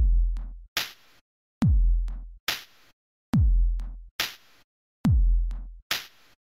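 Electronic background music with a drum-machine beat: a deep kick whose pitch drops, answered by a sharp snare-like hit, repeating about every 1.7 seconds.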